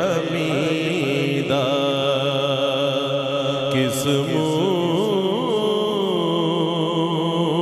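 A man sings an Urdu manqabat (Sufi devotional song) into a microphone, stretching single words such as "hamida" and "kis" over long, wavering, ornamented notes. A steady drone holds underneath.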